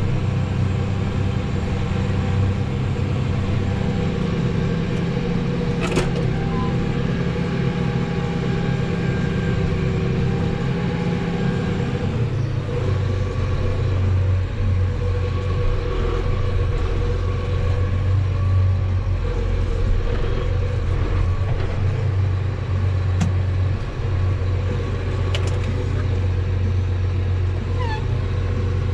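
Farm tractor's diesel engine running steadily. Its note changes about twelve seconds in.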